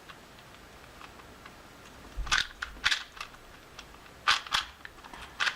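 Sharp plastic clacks of a loosely tensioned Cyclone Boys 2x2x2 speed cube's layers being turned by hand. They come in short scattered bunches starting about two seconds in and run through the rest, with faint room tone before.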